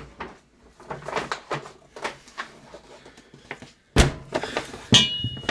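Paper shopping bag rustling as it is carried, then set down on a wooden table with a sharp knock about four seconds in. About a second later an aluminium drink can is put down with a knock and a brief high metallic ring.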